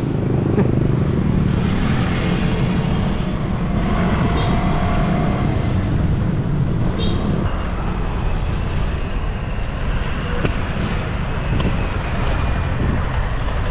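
Steady wind and road noise on the microphone of a camera carried on a moving bicycle, with road traffic around.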